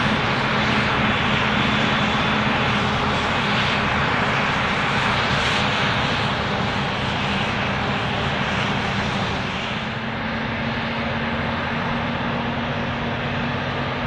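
Claas Jaguar 950 forage harvester chopping maize under load, running alongside a Fendt tractor pulling the trailer: a steady engine drone with a dense hiss over it, slightly quieter from about ten seconds in.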